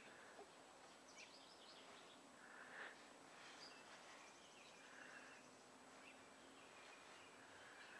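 Near silence: faint outdoor background hiss with distant birds chirping now and then.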